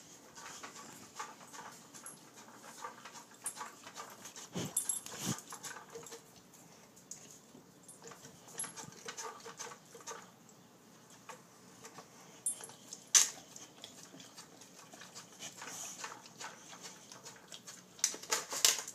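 A boxer dog nosing at a plastic treat-puzzle toy, sniffing and snuffling, with scattered clicks and knocks of plastic as the toy's lids shift. There is one sharp, loud click past the middle and a quick run of clicks near the end.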